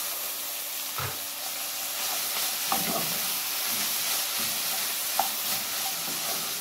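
Shredded chicken filling sizzling in a metal pot while corn is stirred in with a spoon, with a few short scrapes of the spoon against the pot.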